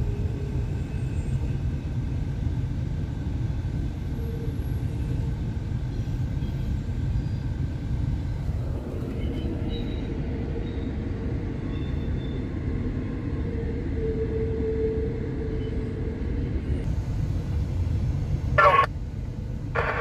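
Steady low rumble of a long intermodal train's flatcars rolling past on the rails, with a faint steady whine above it. A brief, louder burst of noise near the end.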